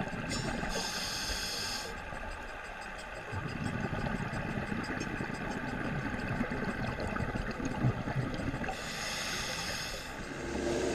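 Underwater sound picked up through a GoPro's housing: a scuba regulator hissing twice on inhalation, each breath about a second and a half long, near the start and near the end, over a steady low rumble of water.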